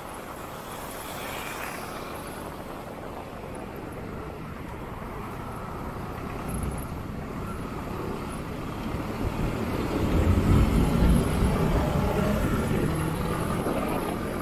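Riding a motorcycle in city traffic: a steady hum of engines and road noise that builds, with a low engine rumble swelling loudest about ten seconds in.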